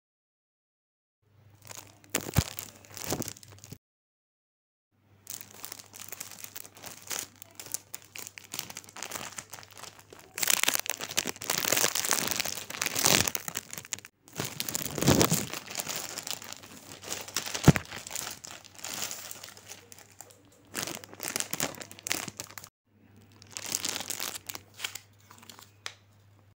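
Clear plastic shrink-wrap crinkling as it is handled and peeled off a stretched cotton canvas, in several stretches broken by short silences, with a few sharp clicks.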